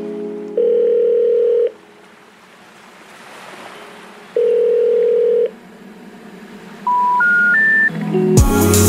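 Telephone line tones: two long steady tones about three seconds apart, then three short beeps stepping up in pitch, the signal that a call cannot be connected. Music with a heavy bass beat comes in near the end.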